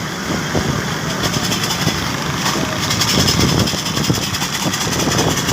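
A motor vehicle's engine running steadily, with road noise.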